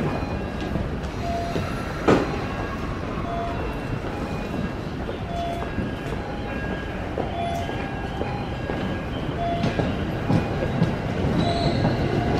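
JR E231-series electric train standing at a platform, then starting to pull away near the end, its inverter-driven traction motors whining up in pitch as it gathers speed. Short high and low beeps alternate about once a second throughout, with a single knock about two seconds in.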